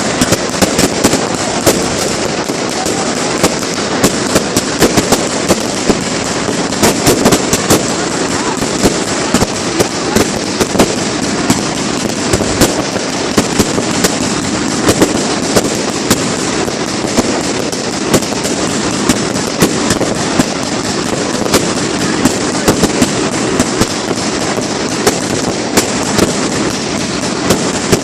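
Fireworks going off in rapid succession: a dense, continuous crackle with many sharp bangs and pops, several a second, throughout.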